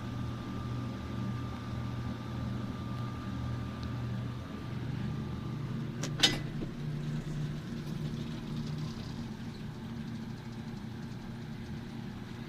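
Old Westinghouse elevator running: a steady low machinery hum that shifts in pitch about five seconds in, followed by a single sharp clunk about a second later.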